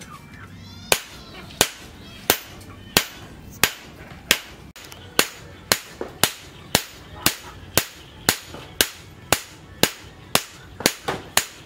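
Hand hammer striking a hot steel machete blade on a small round anvil: sharp metallic blows in a steady rhythm, beginning about a second in at roughly one and a half a second and quickening to about two a second.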